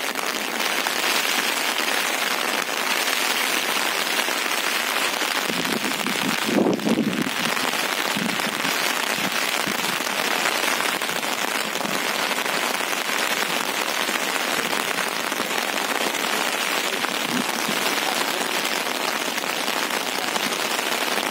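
Steady rain falling, an even hiss throughout, with a brief low rumble about seven seconds in.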